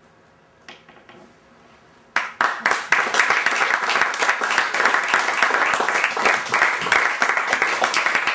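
An audience breaking into applause about two seconds in, after near-quiet with a couple of faint clicks. The clapping of many hands then goes on steadily.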